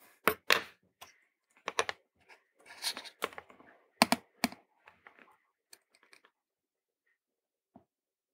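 Small clicks and taps of hand tools being handled against a tabletop: soldering tools set down and picked up, and a soldering iron and solder wire brought to a circuit board. The taps come in an irregular cluster over the first six seconds, then only one or two faint clicks follow.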